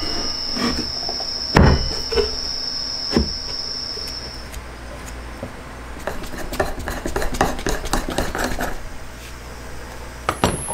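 A few separate knocks as a RYOBI ML-83S electric hand planer is seated in a plywood jointer jig. From about six seconds, a quick run of light metallic clicks and clinks follows for a couple of seconds as a steel threaded rod is turned into a hex coupling nut by hand.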